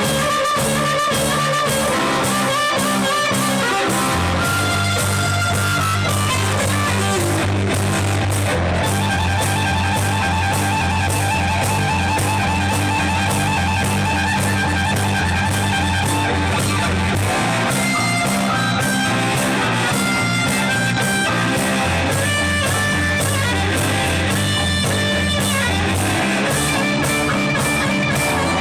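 A band playing rock music: guitar over bass and drums, with a steady beat.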